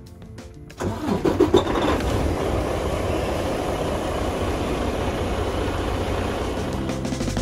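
Semi-truck diesel engine started: the starter cranks briefly about a second in, the engine catches and settles into a steady idle.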